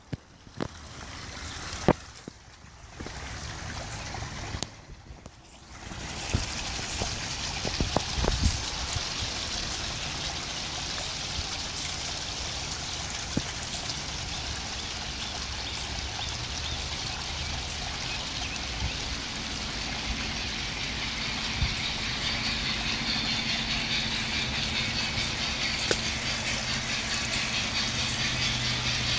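G-scale Bachmann 4-6-0 model train running on its track, its electric motor humming under the rattle of wheels on rail. The hum and rattle grow louder over the last several seconds as the train comes close.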